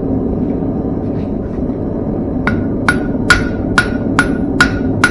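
Hand hammer striking hot steel on an anvil for finishing touches on a thin square-steel cowboy toothpick. After a couple of seconds there are about seven evenly spaced blows, a bit over two a second, each with a short metallic ring, over a steady low rushing noise.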